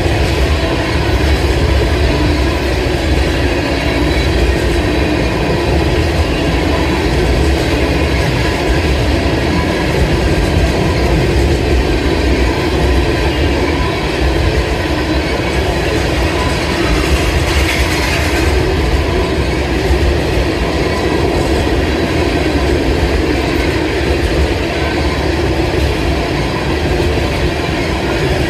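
Freight train of empty tank cars rolling past, its steel wheels running steadily over the rails.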